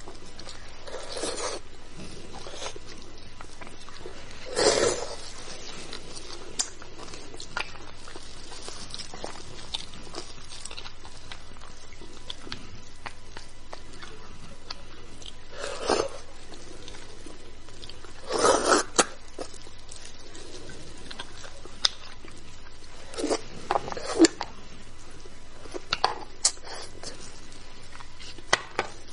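Close-up eating sounds of beef bone marrow being bitten and chewed: scattered short, wet bursts and sharp clicks over a steady hiss, the loudest around the middle of the stretch.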